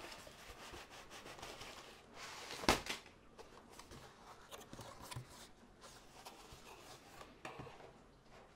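Faint handling of a cardboard box and a plastic-wrapped canvas roll: soft rustling and rubbing, with one sharp knock about two and a half seconds in as something is set down on the table.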